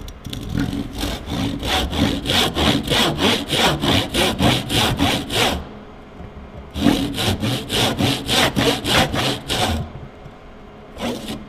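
Tenon saw cutting across a softwood batten by hand, in quick even strokes of about three a second. It saws in two runs with a pause of about a second between them, then gives a last short stroke near the end. The saw is cutting down one side of a trench (housing joint) to its marked depth line.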